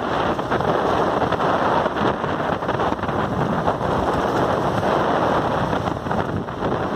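Steady rushing wind noise on the microphone with road and engine noise from a moving vehicle.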